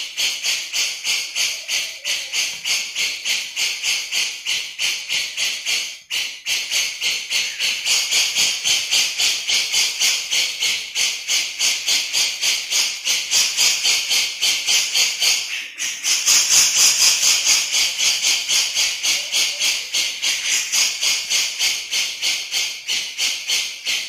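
Cucak jenggot (grey-cheeked bulbul) giving its harsh, rapid 'besetan' chattering call over and over, about two to three pulses a second, with two brief breaks about a quarter and two-thirds of the way through.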